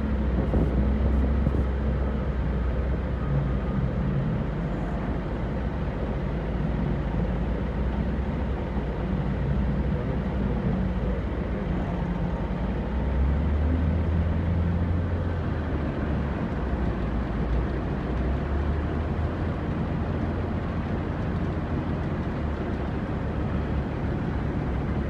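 Heavy diesel engines of dump trucks and a wheel loader running steadily, a low rumble that swells for a couple of seconds about halfway through.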